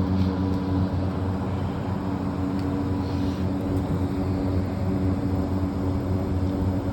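Liebert MC condenser's EC fan motor running at a low, manually set 10% speed: a steady mechanical hum with a low tone and no change in pitch.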